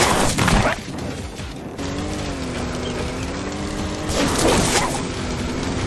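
Animated-cartoon sound effects over background music: a loud noisy rush at the start and another about four seconds in, with a wavering held tone between them.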